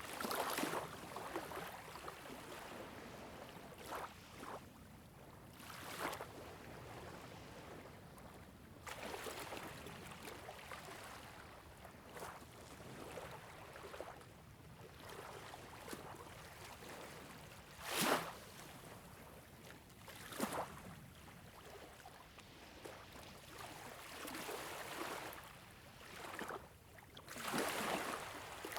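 Water lapping and splashing, with a steady wash broken by irregular sudden splashes every few seconds.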